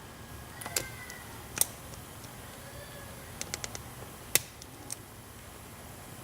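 Small sharp clicks of a pick and tension wrench working the spool pins of a 5-pin brass Brinks padlock during single-pin picking: scattered single clicks, with a quick run of four about three and a half seconds in.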